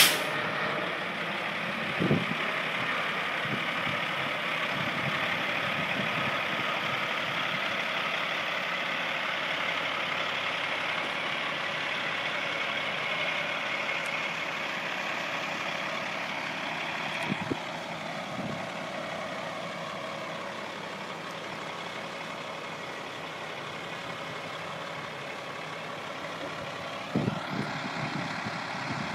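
A fire engine's diesel idling steadily, with a few brief knocks. At the start the departing helicopter's sound fades as it climbs away.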